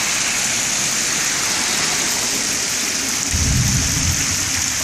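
Heavy rain falling steadily, a constant hiss of rain on pavement and running water. A short low rumble comes in about three seconds in and fades within a second.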